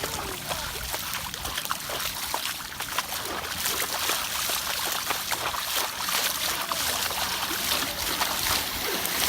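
Heavy hurricane rain falling steadily, with water splashing.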